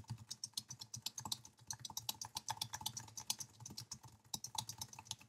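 Fast typing on a computer keyboard: a steady run of key clicks, roughly ten a second.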